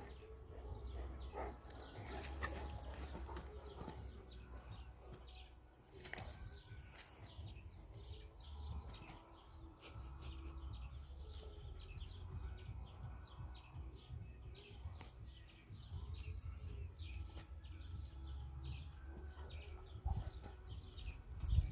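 Small birds chirping in many short, quick calls, over a low rumble of wind on the microphone, with a few soft knocks.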